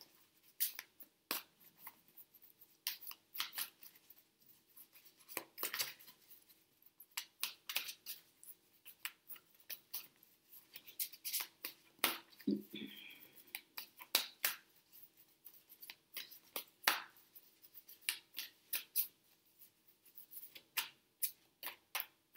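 Tarot deck being shuffled by hand: an irregular run of quiet card clicks and slaps, several a second, as the cards are pushed and slid between the hands.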